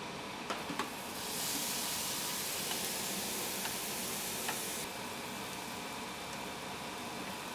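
Marinated chopped chicken, shiitake mushroom and carrot filling hitting a hot nonstick frying pan: a few light clicks, then a loud sizzle starting about a second in that drops after about three and a half seconds to a quieter frying hiss as it is stirred with chopsticks.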